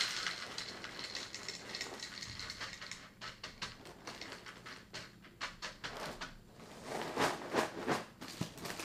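Dry ring cereal (Froot Loops) pouring from a plastic-lined box into a bowl, a rattling patter of small crisp pieces landing. Near the end there are louder rustles and clicks as the box and its bag are handled.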